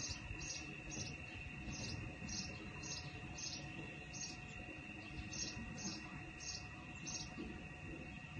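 Short high-pitched chirps repeating about twice a second, with a few brief pauses, from a small animal.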